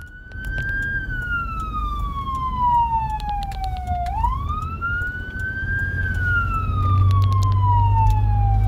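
Whelen 295SL100 electronic siren sounding the wail, heard from inside the vehicle cabin: the tone climbs quickly, then falls slowly, in cycles about five seconds long. Engine and road rumble underneath grows louder near the end.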